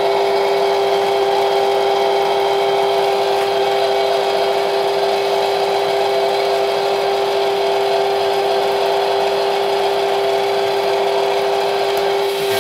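Cuisinart 2-quart freezer-bowl ice cream maker running, its electric motor making a steady hum with one strong held tone as it churns ice cream that has just about thickened.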